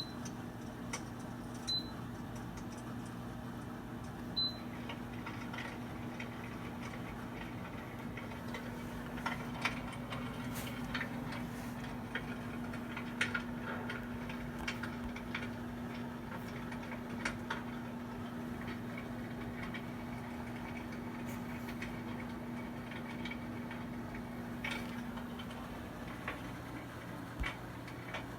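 Electric fireplace insert's built-in fire-crackling sound effect: scattered soft clicks and pops at irregular intervals, over a steady low hum.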